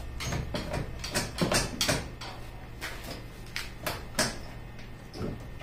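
Irregular knocks, clicks and rattles of a 1992 Toyota MR2's tail light assembly being pulled and worked loose from the body after its screws are out, densest in the first four seconds.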